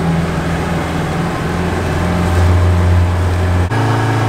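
Boat's outboard motor running under way, a loud steady drone with the rush of water and wake. About three-quarters of the way through it switches abruptly to a different, steadier hum.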